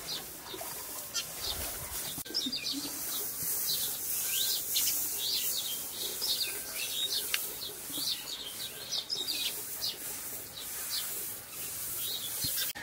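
Small birds chirping, many short high calls in quick succession and overlapping, over a light background hiss.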